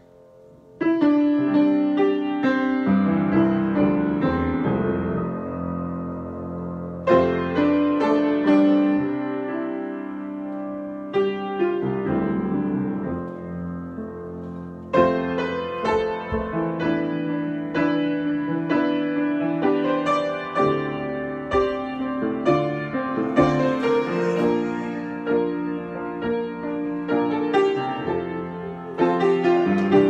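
Grand piano played solo in a free improvisation. After a brief hush, ringing chords are struck about a second in and again near 7 and 11 seconds, each left to die away, then the playing turns busier and denser from about halfway through.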